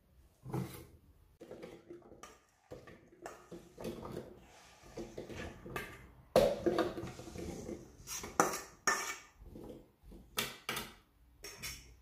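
A metal spoon clinking and scraping against a stainless steel bowl of peeled garlic cloves, then the cloves tipped and spooned out of the bowl into a plastic food processor bowl, in a run of irregular clatters and knocks.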